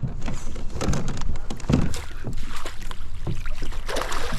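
Irregular knocks and clatter in a fishing kayak, with water splashing against it.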